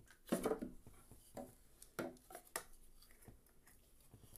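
Hollow bamboo pieces being set into a terrarium: a series of light, irregular knocks and clacks, a cluster of them about a third of a second in and single ones after.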